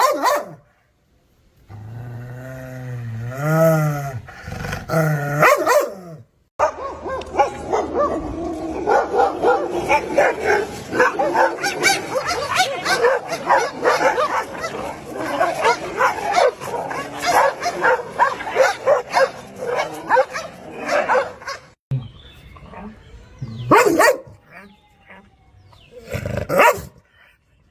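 Dogs barking aggressively, in cut-together clips: a drawn-out pitched growling call, then a long stretch of rapid, nonstop barks, then a few single barks near the end.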